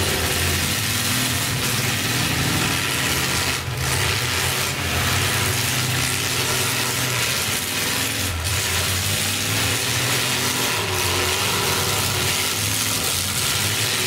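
Several demolition derby cars' engines running and revving together in a rattly, steady din, with a few sharp bangs as the cars hit each other.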